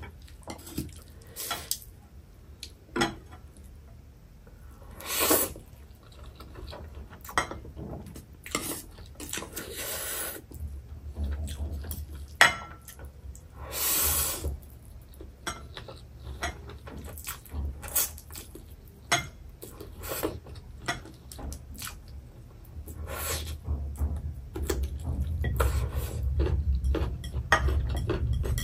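Close-miked eating of noodles: chopsticks clicking and tapping against a foil tray and bowl, with a few second-long slurps of noodles and chewing in between.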